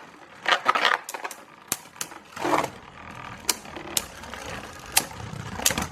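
Two Beyblade Burst spinning tops, Union Achilles and Dread Phoenix, whirring and clashing in a plastic stadium, with irregular sharp clicks as they hit each other and the stadium wall.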